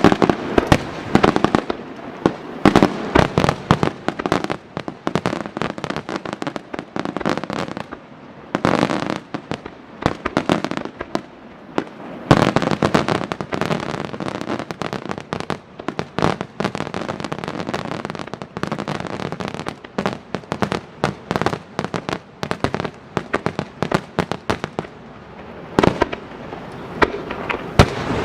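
Super-large star mine fireworks barrage: aerial shells bursting in rapid succession, many sharp bangs packed close together, easing briefly only a couple of times.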